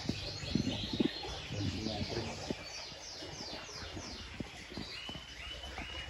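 Canaries singing: a quick run of falling chirps and trills, with a few short level whistled notes near the end.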